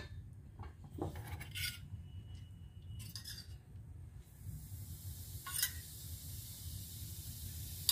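A few light knocks and scrapes on a tawa, then from about four seconds in a steady sizzle as water hits the hot tawa around a kulcha, steaming the bread.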